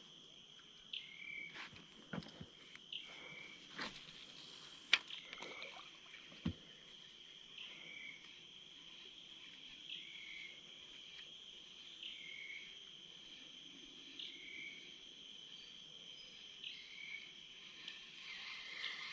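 Faint outdoor wildlife ambience: a steady high insect drone with a short two-note animal call repeating about once a second. A few sharp clicks and a brief hiss come in the first several seconds.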